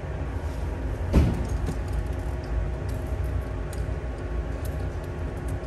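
Folding pram frame being opened and set up: one loud clank about a second in, then a few light clicks, over a steady low rumble.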